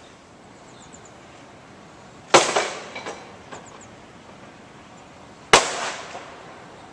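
Two loud crashes about three seconds apart from site clearance work. Each one trails off in a brief clatter, and a few smaller knocks follow the first.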